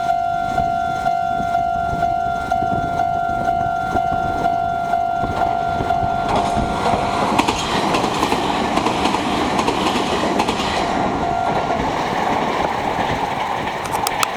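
Japanese level-crossing warning bell ringing in steady pulses, about two a second. From about six seconds in, a Meitetsu 6500-series electric train runs through the crossing with its wheels clattering over the rail joints. The bell carries on faintly under the train and stops a couple of seconds before the end.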